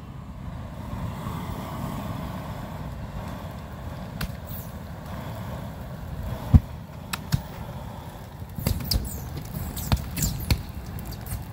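XM42 handheld flamethrower spraying a stream of burning fuel onto a trash pile, a low steady rushing rumble. From about six and a half seconds in it is joined by sharp pops and cracks as the pile catches, the loudest a single crack at about six and a half seconds.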